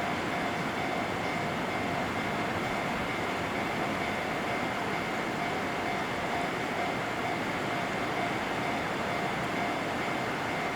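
Steady noise of a JR Central 211 and 313 series electric multiple-unit train: an even rumble and hiss with two faint steady whining tones, holding one level throughout.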